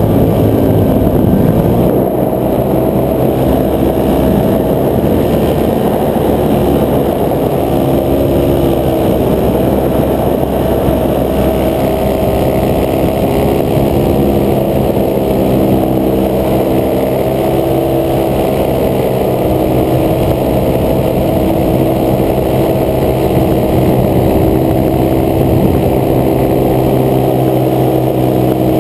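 Paramotor engine and propeller running steadily in flight, the pitch shifting a little now and then.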